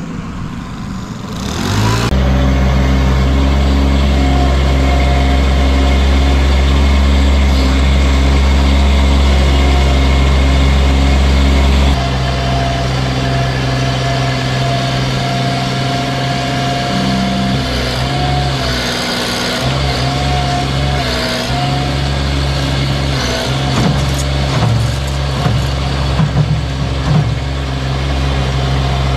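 An engine running steadily and loudly, starting about two seconds in. Its deepest low note weakens about twelve seconds in, and the level wavers slightly near the end.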